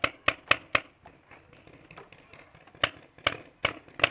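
Paintball marker firing: a quick burst of four shots, a pause of about two seconds, then another burst of four near the end.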